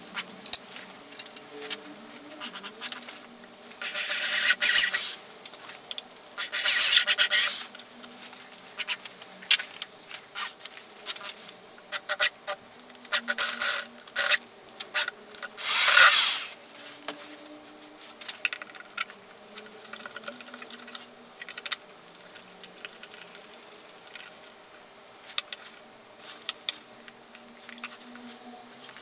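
Power drill boring holes through the top edge of a plastic junction box, in three short loud bursts of cutting with small clicks and rattles between them.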